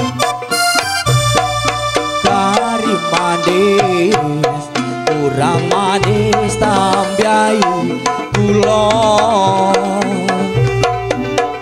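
Javanese campursari-style music played live: hand drums keep a rhythm under a sustained melody line that wavers and slides in pitch.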